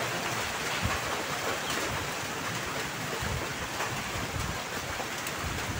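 Steady hiss of light rain falling outdoors, with a few soft low knocks from a ladle stirring rice porridge in a metal wok.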